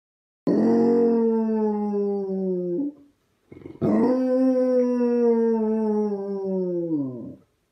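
Basset hound howling: two long howls with a short break between, each holding a steady pitch and then sagging downward as it fades out.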